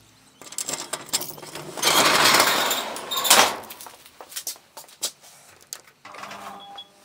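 A metal roller door rolls up with a loud rattle for about two seconds and ends in a clank. Scattered clicks and knocks follow, and near the end a steady electrical hum comes on.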